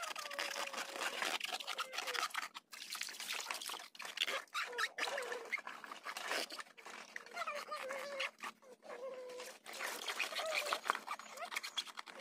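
Water splashing and dribbling as a plastic toy truck cab is rubbed and rinsed by hand in shallow water, with a wavering pitched sound coming and going over it.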